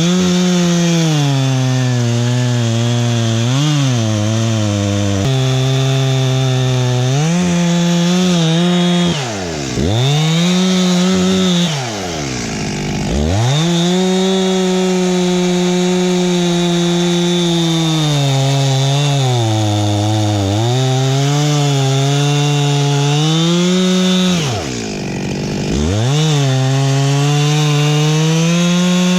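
Chainsaw running at high revs, cutting into tamarind wood. Its engine pitch drops sharply and climbs back several times as the throttle is eased off and opened again.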